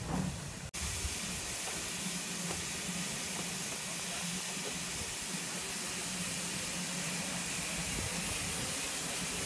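Steam locomotive passing slowly at close range, with a steady hiss of escaping steam. The sound cuts out for an instant just under a second in.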